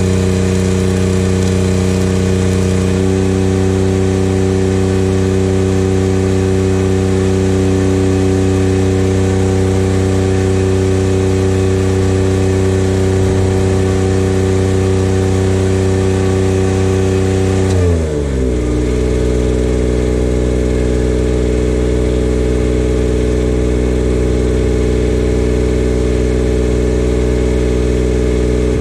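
An engine running steadily, then dropping to a lower, steady speed about eighteen seconds in.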